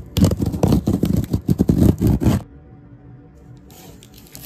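A screwdriver blade slitting clear packing tape along the seam of a cardboard box: a quick run of loud, rasping scrapes for about two and a half seconds, then softer rustling of tape and cardboard.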